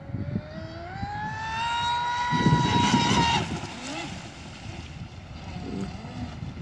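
Fast electric RC boat's brushless 1600KV motor, on a 6S battery with a ZTW 200 A speed control, driving its propeller: a whine that climbs in pitch as the boat speeds up, holds high, then drops off abruptly about three and a half seconds in, with a fainter whine after. Wind buffets the microphone under the loudest part.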